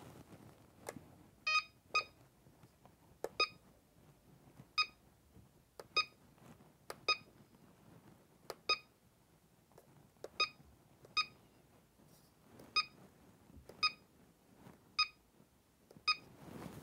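Cellpro Powerlab 8 battery charger beeping as its front-panel buttons are pressed to set up a cell discharge. There are about a dozen short high beeps at uneven intervals, each with a light click of the button.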